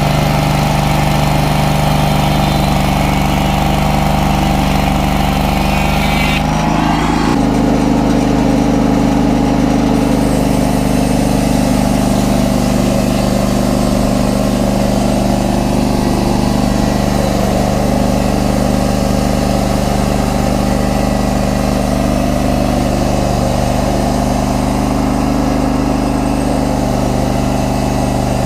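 Engine of a portable Hudson band sawmill running steadily, its tone shifting abruptly about seven seconds in.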